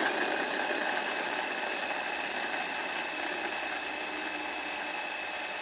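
Small electric mini chopper switched on abruptly, its motor running at a steady high whine as the blade minces a bowl of peeled garlic cloves.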